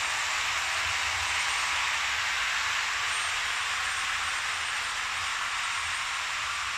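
Märklin H0 model trains rolling on metal track: a steady hiss of small wheels on the rails as a train of Swiss passenger coaches runs past close by. A faint high whine is heard for a few seconds in the middle.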